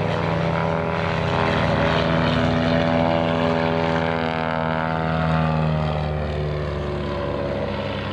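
Vintage biplane's propeller engine running in flight, close overhead. Its note rises in pitch over the first few seconds, then falls away as it passes, loudest in the middle.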